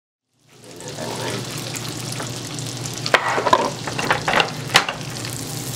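Butter melting and sizzling in a hot pan, fading in after a brief silence, with several sharp crackles and spits about three to five seconds in.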